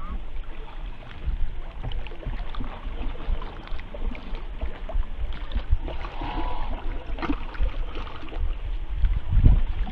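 Kayak paddles dipping and splashing in lake water, with a gusty low rumble of wind on the microphone.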